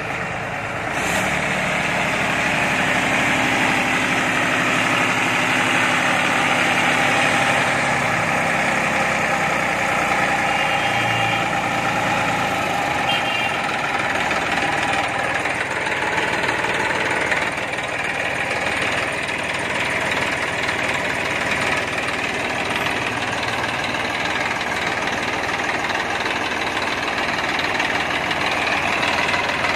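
A Massey Ferguson 7250 DI tractor's three-cylinder diesel engine running steadily, heard up close.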